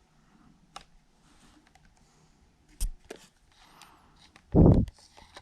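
Small plastic alarm clock being handled: scattered light clicks and taps, one sharper click about three seconds in, then a short dull thump near the end, the loudest sound.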